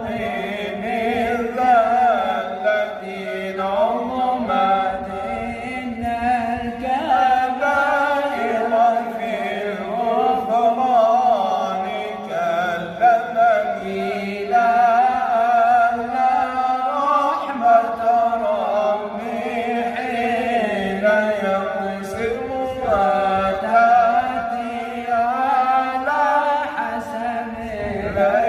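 Unaccompanied Arabic devotional chanting by a voice drawing out long, wavering melismatic lines without pause.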